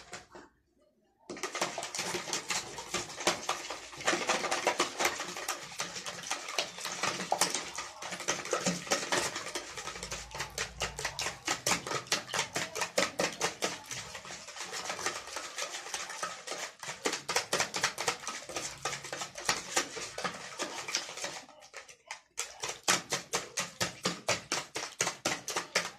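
Small wire hand whisk beating raw eggs in a plastic bowl: fast, even clicking of the wires against the bowl. It starts about a second in, pauses briefly near the end, then starts again.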